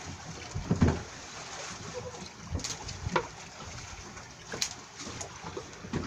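Scattered knocks and light clatter of gear being handled on a small fishing boat's deck, over a steady wash of sea and wind noise.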